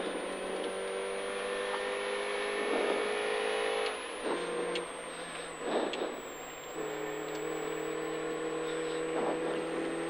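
A MINI rally car's engine heard from inside the cabin, pulling hard and steady for about four seconds. It eases off between about four and seven seconds in, with a couple of knocks, then comes back on throttle at a steady pitch.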